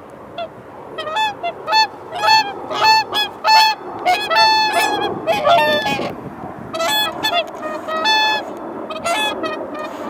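Whooper swans calling: a run of short, pitched calls from several birds, overlapping. The calls begin about a second in, are busiest over the next few seconds, and come more sparsely near the end.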